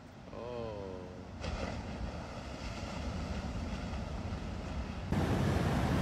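Ocean surf breaking on the beach, heard as a steady rushing noise mixed with wind on the phone microphone. It jumps louder about five seconds in. Near the start there is a brief wavering cry.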